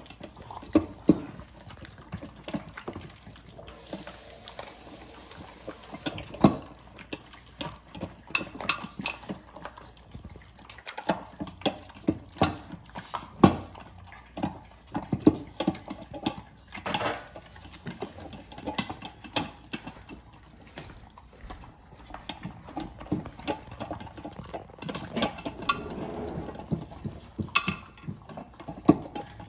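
Two beagles eating from raised bowls with stainless steel liners: irregular crunching and clinking of food against the metal.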